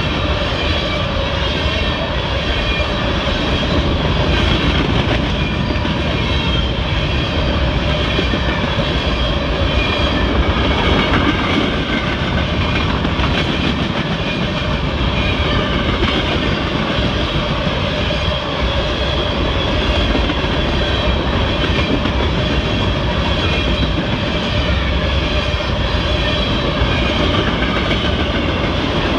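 Norfolk Southern freight train's cars rolling past close by: a steady rumble and clatter of steel wheels on the rails.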